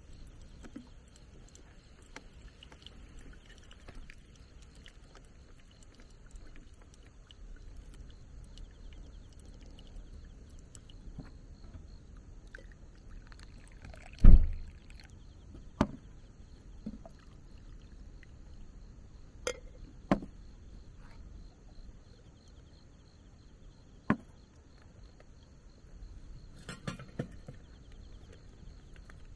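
Coffee poured from a glass drip server into a ceramic mug, with light knocks of the cups and server set down on a table and one heavy low thump about halfway through. Faint insects chirr steadily in the background.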